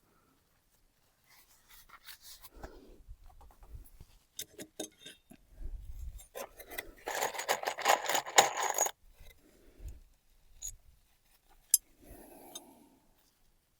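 Hand work on building material: scattered clicks, knocks and rubbing, then a dense scraping or rasping run lasting about two seconds some seven seconds in, and a sharp click near the end.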